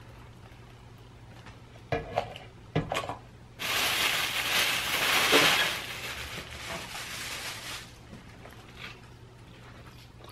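A few light clicks of plastic sauce cups set down on a table, then a thin plastic take-out bag and paper wrapping crinkling and rustling loudly for about two seconds as the food is unwrapped, trailing off into softer rustles.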